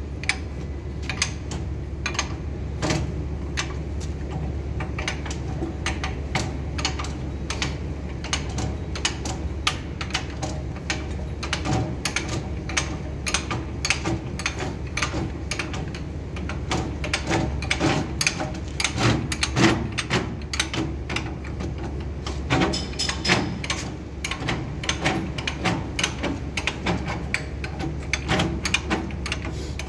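Irregular metallic clicking and clanking from work on an electric locomotive's bogie and brake gear, over a steady low hum, with a few louder knocks past the middle.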